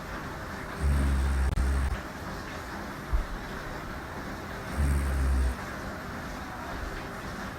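A woman snoring: two low snores about four seconds apart, the first about a second in and lasting about a second, the second shorter, over a steady background hiss. A brief sharp tap sounds about three seconds in.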